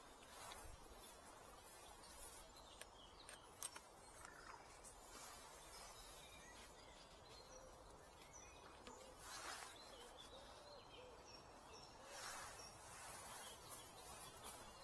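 Near silence: faint outdoor ambience with small birds chirping now and then, and a few soft knocks and rustles from hands handling a bicycle handlebar grip.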